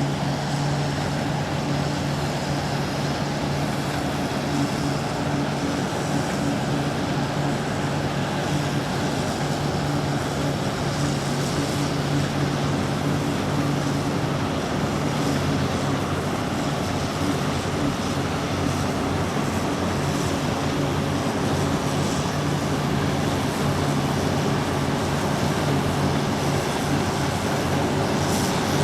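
Massey Ferguson combine harvester running steadily while harvesting: a constant engine hum under the broad, even din of the machine.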